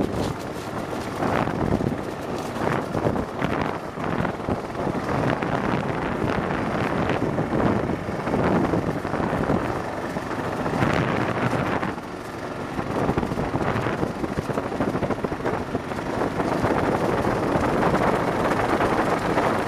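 Kawasaki KLR motorcycle riding along at speed, its engine running under heavy wind buffeting on the microphone, which comes in gusts throughout.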